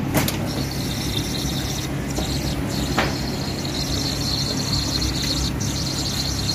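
Steady drone of commercial kitchen machinery with a high, steady whine over it, and a couple of light clicks, one at the start and one about three seconds in.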